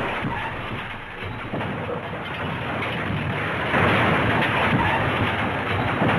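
Crash sound effect: a continuous rumbling, crackling noise that eases after a sudden loud start just before, then swells again a little under four seconds in.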